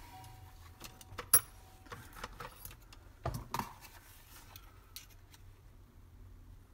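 Sharp clicks, clatter and knocks of hard parts being handled at a workbench. The loudest is a single sharp click about a second and a half in, followed by a cluster of knocks around three and a half seconds.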